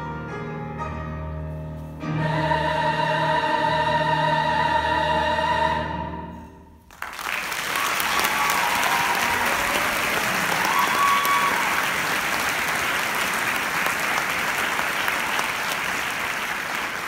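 A treble choir of young women singing with piano, swelling into a loud held final chord that fades and stops about seven seconds in. The audience then breaks into applause with a few whoops.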